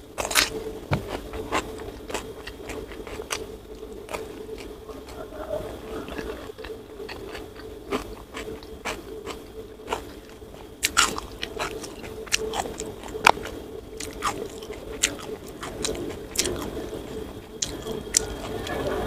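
Close-up eating sounds: a crunchy bite into a raw cucumber near the start, then chewing with many sharp, irregular crunches and wet mouth clicks. A steady low hum runs underneath.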